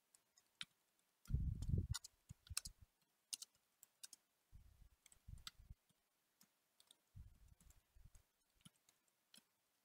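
Faint computer keyboard typing: scattered, irregular key clicks, with clusters of dull low thumps about a second and a half in, around five seconds and again near eight seconds.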